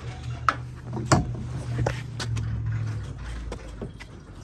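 A steady low engine hum, fading out about three seconds in, with several sharp knocks and clatters, the loudest about a second in.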